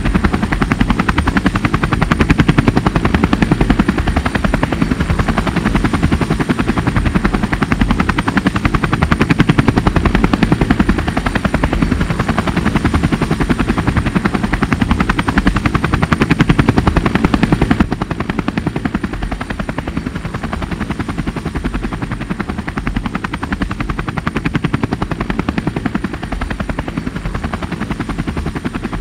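Quadcopter drone's propellers and motors buzzing in flight, with a rapid pulsing and a steady high whine. The sound drops somewhat about two-thirds of the way through.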